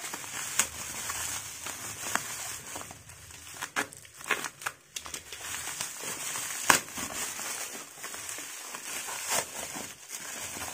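Black plastic bubble-wrap packaging crinkling and rustling as hands cut and pull it open, with irregular sharp crackles. One loud snap comes about two-thirds of the way through.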